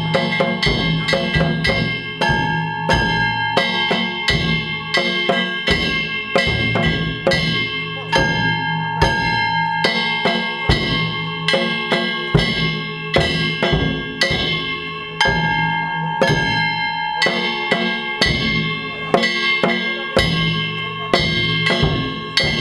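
Danjiri hayashi offering music: taiko drums and small hand-held bronze gongs (kane) struck in a fast, steady rhythm, the gongs' metallic ringing hanging over the drum beats.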